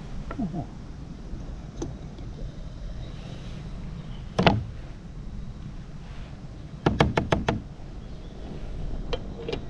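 Cookware being handled on a camping stove: a sharp knock about four and a half seconds in and a quick run of five clatters about seven seconds in, with a few lighter taps, over a steady low rumble.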